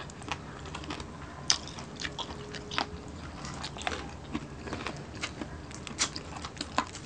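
Close-miked eating sounds: chewing and biting crispy fried food such as fried tilapia and crispy pork sisig, with scattered small crunches, clicks and lip smacks at an uneven pace.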